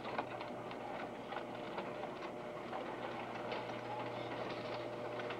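Electric garage door opener running: a steady motor hum with the door clattering and clicking along its track as it opens, stopping near the end.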